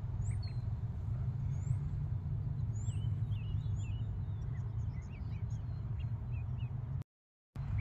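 Young chicks and ducklings peeping, many short high chirps scattered through, thicker in the second half, over a steady low rumble. The sound cuts out for about half a second near the end.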